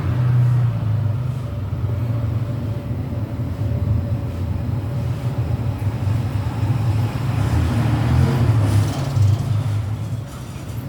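Steady low rumble with a faint steady hum over it.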